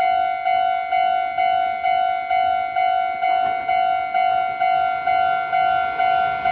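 Japanese railway level-crossing warning bell ringing a steady electronic ding about twice a second, signalling that a train is approaching and the crossing is closed.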